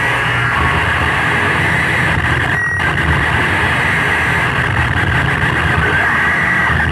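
Loud, dense electronic noise from a live improvised noise performance: a steady low rumble under a harsh, hissing band higher up, with no rhythm or melody.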